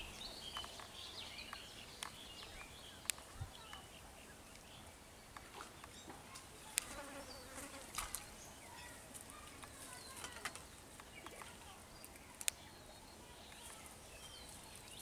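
Faint outdoor ambience with insects buzzing, small scattered chirps and a few sharp light clicks. About eight seconds in, a short splash as a small hooked fish thrashes at the water's surface.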